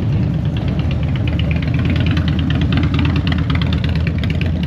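Motorcycle engine running loud and steady at low revs, with a fast, even beat of exhaust pulses.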